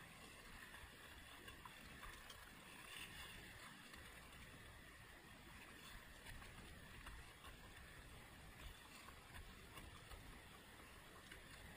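Faint, steady rush of a shallow river's current running over riffles, close to near silence.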